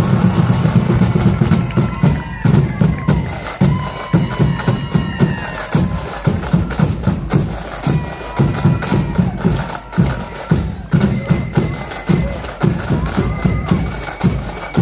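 A marching flute band playing: flutes carry the tune over a steady, regular beat of drums.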